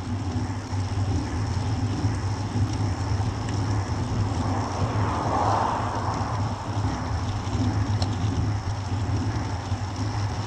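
Steady wind and road noise on a bike-mounted camera's microphone as a group of road bicycles rolls along asphalt, swelling briefly about halfway through.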